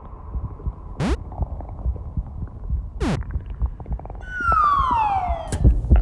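Cartoon sound effects: a low throbbing rumble runs underneath while two quick whooshes sweep past, the first rising and the second falling. About four seconds in, a loud falling whistle drops in pitch for over a second, and a low thump lands near the end.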